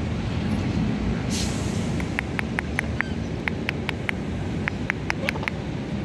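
Steady low rumble of city street traffic, with a short hiss about a second in and a quick run of sharp clicks, in small clusters, through the second half.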